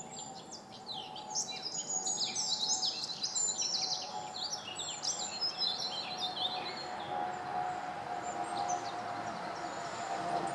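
Woodland birdsong: many quick, high falling chirps and trills from several small birds, busiest in the first two thirds and thinning toward the end, over a steady, slightly wavering tone.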